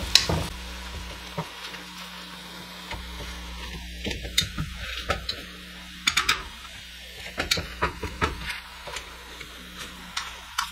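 Wire potato masher working boiled potatoes in a nonstick pot: an uneven run of soft thuds and clacks as the masher hits the pan bottom, busier in the second half, over a faint sizzle of butter in the hot pot.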